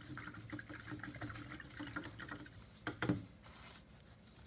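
A paintbrush swished and rinsed in a cup of water, a rhythmic liquid patter, with a louder clunk about three seconds in.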